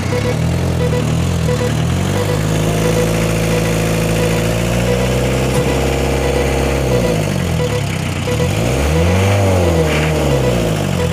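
Large vehicle engine running and revving: it climbs about two seconds in, holds steady, drops back about seven seconds in, then revs up and down once more near the end.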